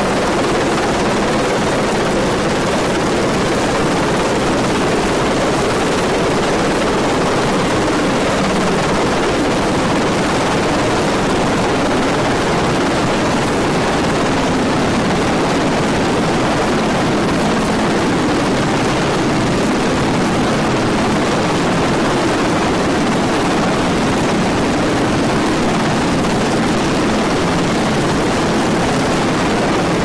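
CH-149 Cormorant search-and-rescue helicopter hovering for a hoist rescue: loud, steady rotor and engine noise.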